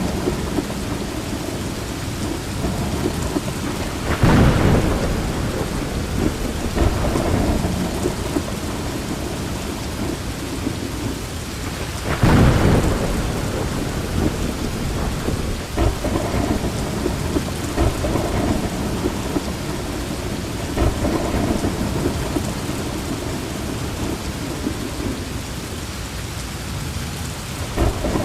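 Heavy rain falling steadily during a thunderstorm, with two loud thunderclaps about four and about twelve seconds in, each lasting about a second.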